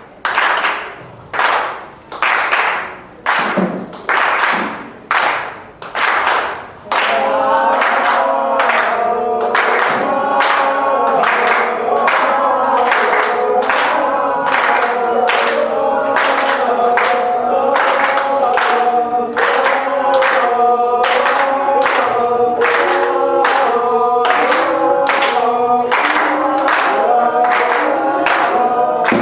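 Rhythmic hand clapping, about two claps a second, joined about seven seconds in by a group of voices singing together in time with the claps.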